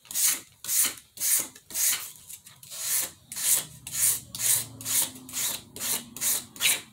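A brush scraped hard across a paper plate in quick, even strokes, about two a second, each a short scratchy rasp. The strokes all run the same way, scoring a wood-grain texture into the paper.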